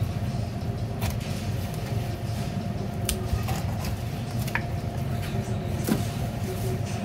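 A steady low mechanical hum, with a few short sharp taps and clicks of a knife on a plastic cutting board as raw halibut is skinned.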